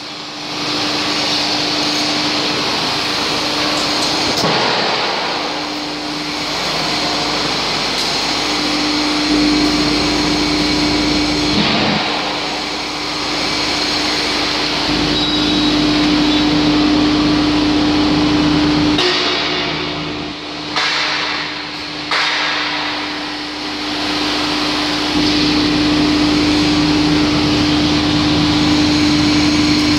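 Motor-driven propeller turning inside a fabricated steel duct, running steadily with a constant hum over a loud whirring drone; the level steps up and down a few times and dips briefly twice about two-thirds of the way through.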